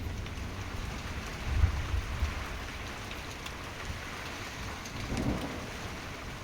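Heavy rain pouring down in a steady hiss during a thunderstorm, with a low rumble of thunder about one and a half seconds in.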